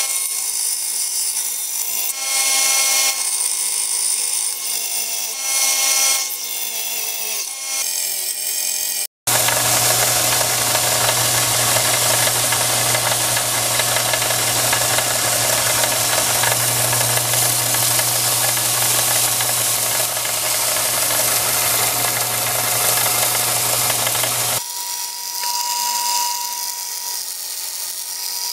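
Benchtop belt sander running while the flat of a steel meat cleaver blade is pressed onto its abrasive belt, a steady motor hum under a grinding hiss. The sound changes sharply with a brief dropout about nine seconds in, and changes again near the end.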